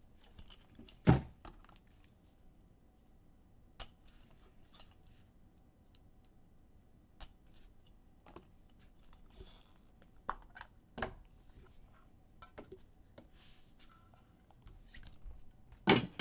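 Scattered knocks, taps and light rustling from trading-card packaging and cards being opened and handled on a table. There is a sharp knock about a second in and another near the end.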